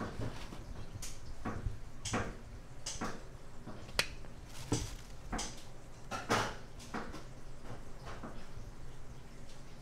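Irregular soft clicks and taps of gloved hands handling a plastic sashimi platter while arranging raw yellowtail slices, one sharper click about four seconds in, over a low steady hum.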